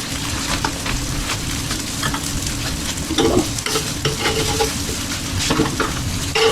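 Zucchini and Brussels sprouts sizzling on a hot Blackstone flat-top griddle, with repeated scraping strokes across the steel plate every second or so as the vegetables are stirred.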